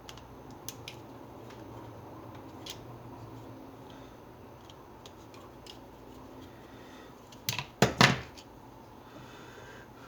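Light clicks and taps of hand-disassembly work on a hammer drill, with a brief loud clatter of knocks about three-quarters of the way through.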